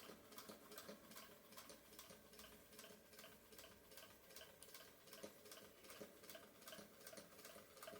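Singer Featherweight sewing machine stitching at a slow, steady pace: faint, even ticking of the needle strokes, about four a second. The machine runs very quietly.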